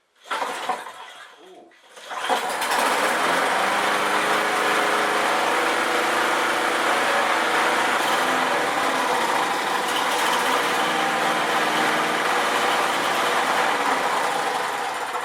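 Briggs & Stratton 4 hp mulching lawn mower engine being started, with a brief burst just after the start, catching about two seconds in and then running steadily. It is being run to warm the oil before draining.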